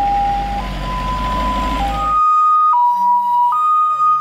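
Ambulance two-tone hi-lo siren, switching between a higher and a lower note about once a second. For the first two seconds it plays over a steady low rumble; then the rumble drops away and the siren continues alone at a slightly higher pitch.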